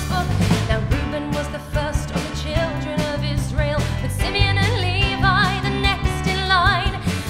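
A woman sings a musical-theatre song live over a small band of drums, bass and violin. She holds wavering, vibrato notes twice in the second half.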